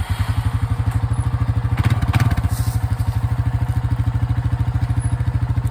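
Four-wheeler (ATV) engine running at a steady idle, an even, rapid low putter that comes on abruptly at the start, with a brief clatter about two seconds in.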